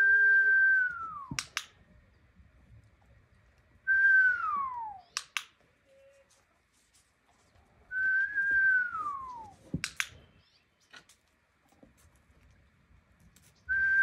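A person whistling a dog's 'down' cue: a long steady tone that drops sharply in pitch at the end. The cue is heard four times, the last beginning near the end. A sharp click follows each of the first three.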